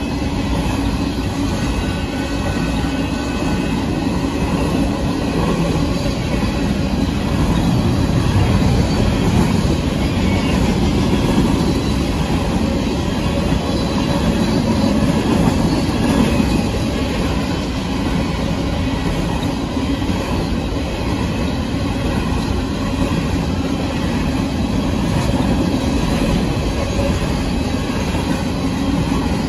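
Covered hopper cars of a grain train rolling steadily past at a grade crossing: the continuous deep rumble and rattle of steel wheels on the rails.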